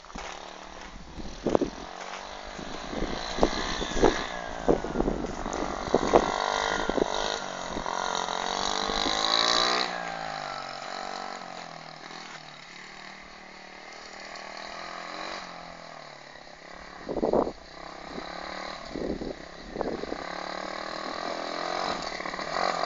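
50 cc dirt pit bike engine revving up and easing off as it is ridden, its note rising and falling, fading for a while in the middle and climbing again near the end. A few short sharp thumps stand out, mostly in the first half and once about two-thirds through.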